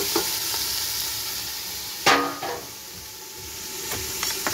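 Chopped tomatoes and browned onions sizzling in hot oil in an aluminium pot, the sizzle gradually fading. About two seconds in there is one sharp metallic clank with brief ringing.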